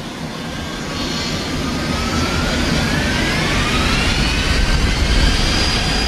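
Jet airliner engines spooling up for the takeoff roll: a steady roar that grows louder, with several whines rising in pitch.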